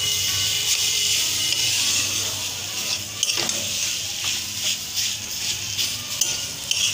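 Spatula stirring and scraping mashed jackfruit around a steel kadhai, with a steady sizzle as the mixture fries.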